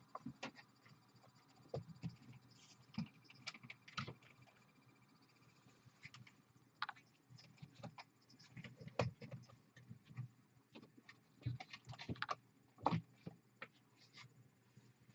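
Scattered light taps, knocks and rustles of a cable being handled and routed along and behind a desk.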